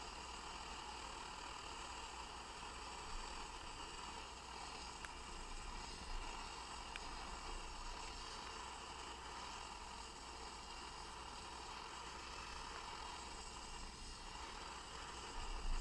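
Optimus Hunter camping stove's burner running under a pot of water, a steady even hiss.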